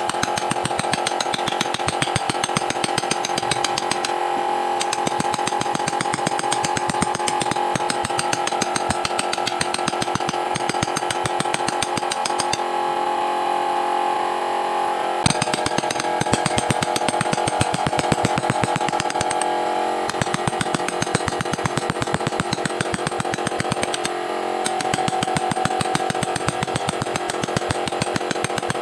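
A power tool working wood: a steady motor sound with rapid, even ticking. Its tone shifts suddenly about halfway through.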